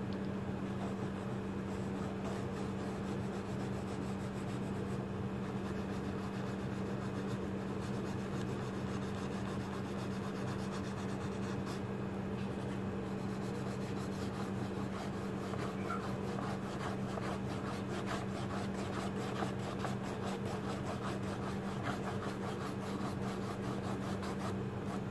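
Blue colored pencil shading on paper, a steady scratchy rubbing of quick back-and-forth strokes, over a constant low hum.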